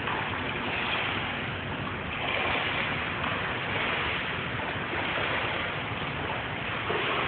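Gentle splashing and lapping of pool water from a swimmer's strokes, swelling and easing with each stroke over a steady rush of noise.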